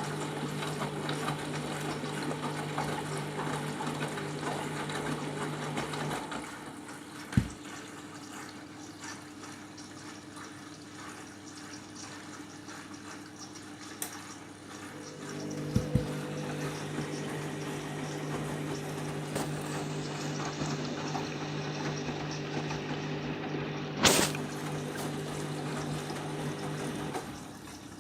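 Candy washing machine taking in water for a rinse: water running into the drum with a steady hum. It stops about six seconds in and starts again about fifteen seconds in. Short knocks come at the gaps, the loudest near the end.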